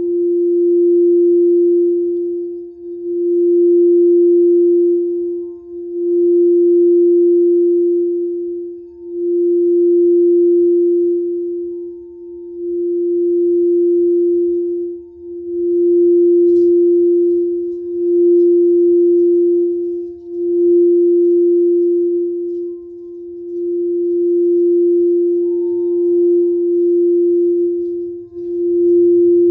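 Frosted quartz crystal singing bowl sung by running a wooden striker around its rim: one steady ringing tone that swells and fades about every three seconds.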